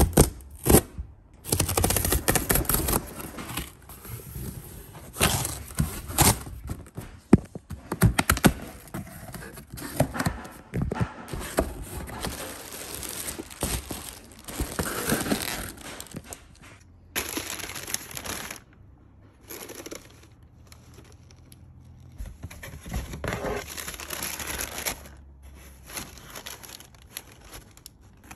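Cardboard shipping box being torn open along its tear strip, then plastic packaging bags and tissue paper crinkling and rustling in irregular bursts with sharp crackles as the items are unpacked by hand.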